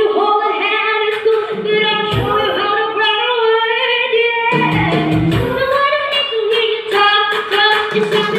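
Two girls singing a song together into microphones, amplified through loudspeakers, over electronic keyboard accompaniment with low notes coming in twice.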